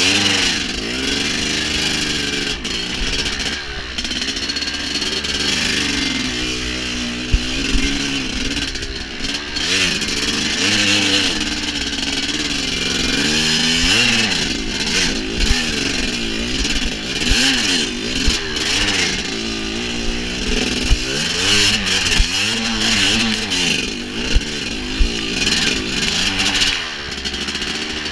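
Dirt bike engine revving up and down again and again as it is ridden over rough trail. A few sharp knocks break in along the way.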